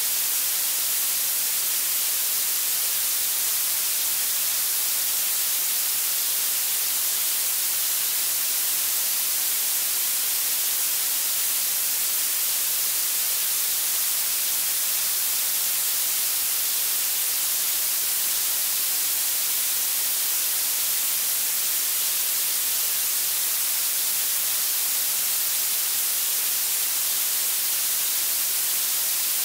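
Blue noise: a steady, unchanging hiss weighted toward the high frequencies, thin in the bass.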